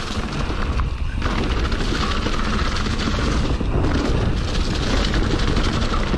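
Mountain bike riding fast downhill over leaf-covered dirt: tyres rolling and the bike rattling over bumps, under a low rumble of wind buffeting the microphone.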